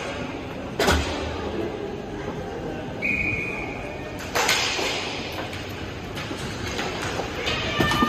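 Hockey game play on a plastic-tiled rink: sharp knocks of sticks and puck on the floor and boards, the loudest about a second in and others near the middle and end, with a brief steady high tone about three seconds in and faint voices in the hall.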